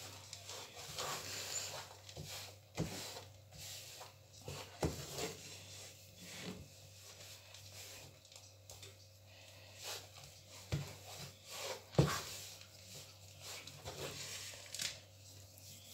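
Wooden spatula scraping and pushing a crumbly peanut-and-sugar mixture around a non-stick frying pan, with several sharper knocks of the spatula against the pan, the loudest about twelve seconds in.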